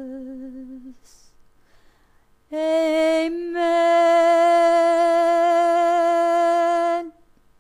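A woman singing unaccompanied. A held note with vibrato fades out about a second in, and after a short pause she sings a long sustained note at a steady pitch, briefly broken once, that stops shortly before the end.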